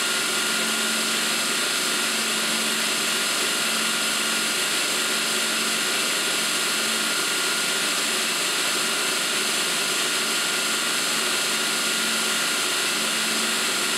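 Burr King belt grinder running steadily, its abrasive belt grinding the tip of a steel twist drill bit held against the rubber-coated contact wheel. The sound is a continuous hiss with a steady high whine.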